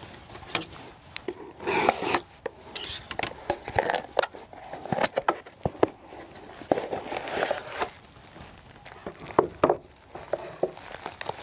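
Handling of a cardboard box as its taped flaps are opened, irregular scraping and rustling with sharp clicks, then bubble wrap crinkling near the end as the wrapped part is lifted out.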